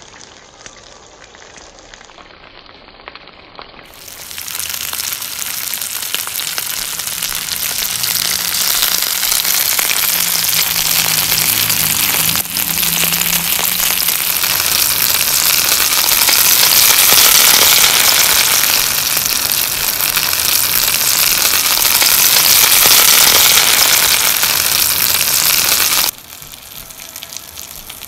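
Flour-coated hake steaks sizzling loudly in hot oil in a grill pan: a dense, crackling hiss. It comes in after a few quieter seconds and cuts off abruptly near the end.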